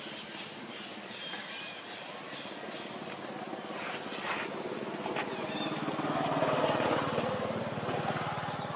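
A motor engine running, growing louder to a peak about six to seven seconds in and then easing off, as from a vehicle passing. A few short bird chirps sound in the first few seconds.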